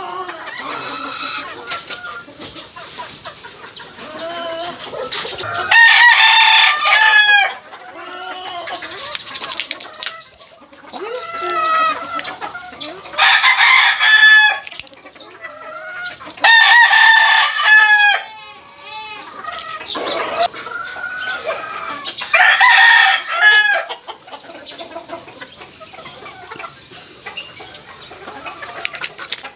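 Gamefowl roosters crowing again and again: four long crows a few seconds apart, with softer clucking and chicken calls between them.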